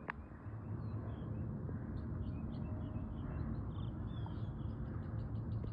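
Small birds chirping and calling, many short chirps, over a steady low outdoor rumble.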